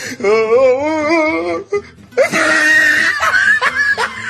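Comedy sound effect: a wobbling, wavering wail for about a second and a half, then after a short break a louder, harsher cry-like sound.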